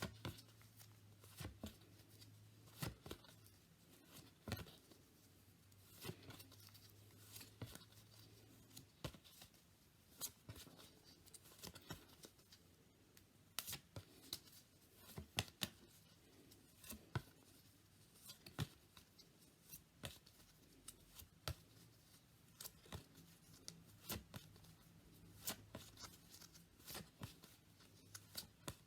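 Phonics flashcards being flipped over by hand one after another: short, faint card flicks and rustles, about one a second, over a faint low hum.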